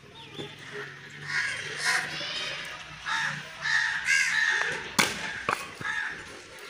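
Crows cawing several times, with one sharp chop of a blade into firewood about five seconds in.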